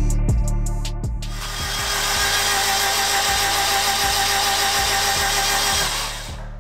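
Honda K20 four-cylinder engine spun over on its starter motor with the spark plugs out and no fuel, a steady whir that starts about a second in and stops near the end. It is being cranked to pump fresh oil through the engine, oil cooler and turbo lines before its first start. Background music with a beat plays underneath.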